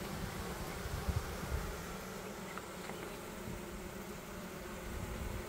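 Honeybee colony buzzing in an open multi-storey hive: a steady, even hum from many bees on the frames and box walls. A couple of low bumps come about a second in.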